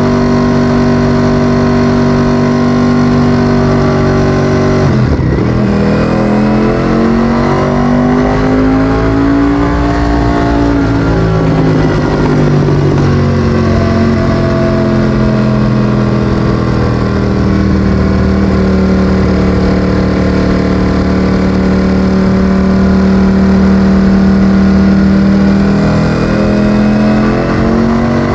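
Ducati Streetfighter V4S's 1103 cc Desmosedici Stradale V4 engine running through an Akrapovic exhaust. It holds steady revs, then about five seconds in the pitch rises and falls again, before settling into a long steady note.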